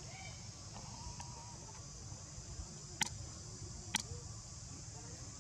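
Steady high insect chirring. Over it come a few faint, thin squeaks from a baby macaque, and two sharp clicks about three and four seconds in.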